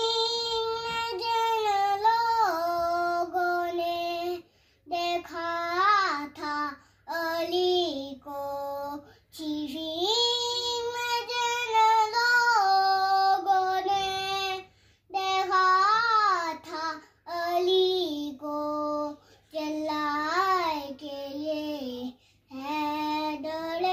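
A young boy's unaccompanied melodic recitation, Quranic tilawat, in long held phrases with sliding ornaments, each broken off by a short breath pause.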